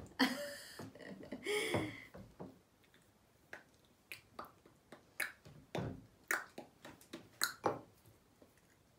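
A short vocal sound at the start, then a string of sharp clicks and taps, about a dozen spread over five seconds, as plastic bottles and shaving foam cans are picked up and handled on a tabletop.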